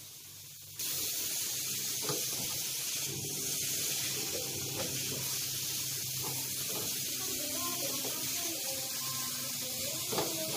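R32 refrigerant hissing out of an opened air-conditioner pipe fitting as the system is vented, stepping up louder about a second in and then running steadily. The rush of freon shows the unit still holds its charge, so it has no leak.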